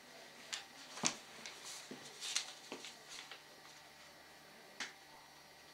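Quiet room with a handful of faint, short clicks and rustles at irregular intervals, the sharpest about a second in and another near the end.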